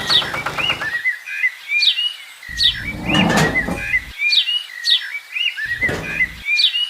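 Small birds chirping over and over in short, quick calls. A brief noisy burst comes about three seconds in, and a sharp knock about a second before the end.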